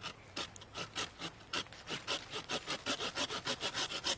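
Small hand saw cutting through a green madrone sapling: short back-and-forth strokes that quicken to about five a second.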